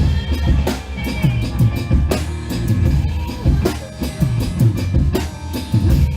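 Drum kit played along to a recorded song: bass-drum hits several times a second, with a sharp snare backbeat about every second and a half over the song's other instruments.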